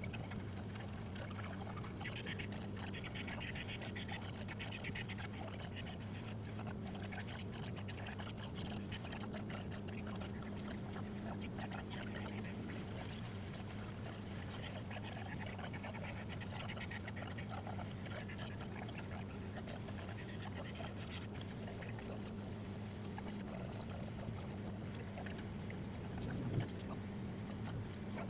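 Steady low hum under faint room noise, with scattered soft ticks and a single knock near the end.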